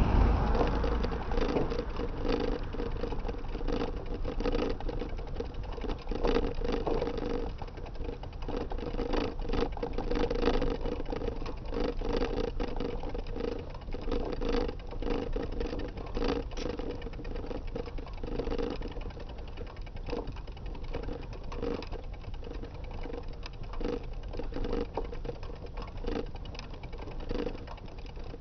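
A vehicle rolling along a road with a steady mechanical running sound and frequent irregular rattling.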